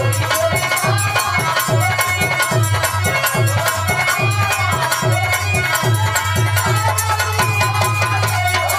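Birha folk music: a chorus of men singing over a steady dholak beat, with harmonium and rattling hand percussion.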